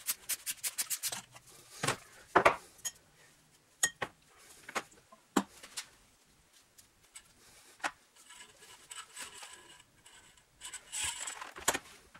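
Ratchet wrench clicking fast on a motorcycle fork tube's top cap, stopping about a second in. Then come scattered clinks and knocks of metal fork parts and tools being handled and set down on a workbench and into a plastic drain pan. A brief rattle near the end comes as the fork spring is drawn out of the tube.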